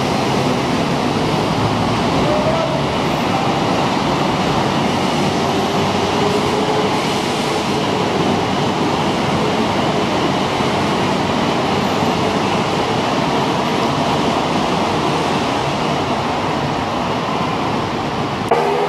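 Heavy city traffic on a multi-lane road: a steady, loud roar of car, van and bus engines and tyres, with engines rising in pitch now and then as vehicles pull away.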